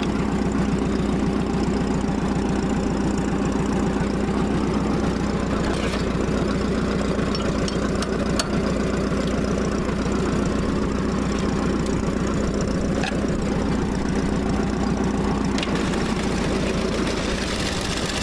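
Small tractor's engine running steadily at idle, with an even pulsing beat. A few light clicks are heard over it.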